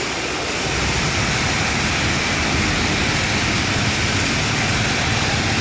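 Traffic passing on a wet road in the rain: a steady hiss of rain and tyres on water, with the rumble of vehicle engines growing louder about a second in.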